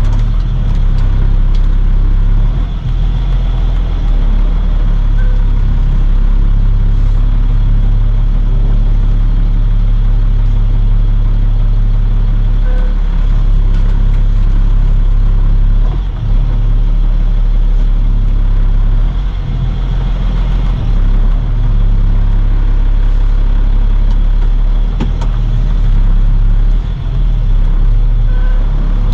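Box truck's engine and road noise heard while driving: a loud, steady low rumble with only small dips.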